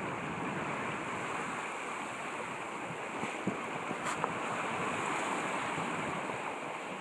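Water washing along the hull of a timber Hartley TS21 sailing yacht under way, with wind on the microphone. A couple of light knocks about halfway through.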